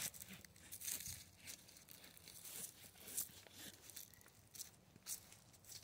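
Hand pruning saw rasping through the trunk of a small spruce in short, uneven strokes; faint.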